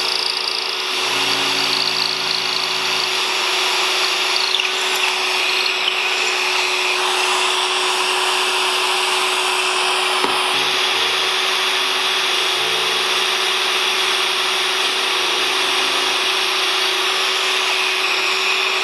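Cordless drill spinning a stepped pocket-hole bit into wood through a Kreg K5 pocket-hole jig, in several separate runs. A shop vacuum on the jig's dust-collection hose drones steadily throughout.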